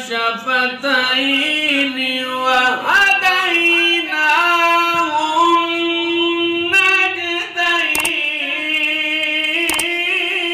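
Qari's melodic Quran recitation (tilawat): a single male voice drawing out one phrase in long held notes with gliding ornaments, sweeping up in pitch about three seconds in and holding a high note for several seconds.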